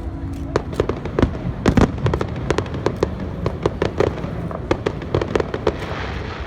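Fireworks display: a rapid, irregular string of sharp pops and bangs, with the loudest cluster of bursts about two seconds in.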